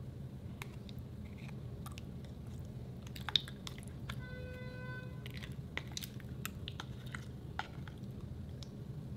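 White slime being poked, squeezed and scooped out of a plastic tub by hand: scattered small sticky clicks, pops and squelches over a steady low hum, with one sharper click about three seconds in and a brief steady tone soon after.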